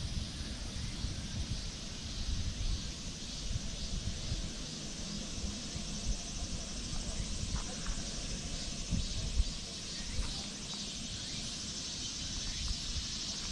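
Outdoor summer ambience: a steady high chorus of insects over a low, uneven rumble, with one brief louder thump about nine seconds in.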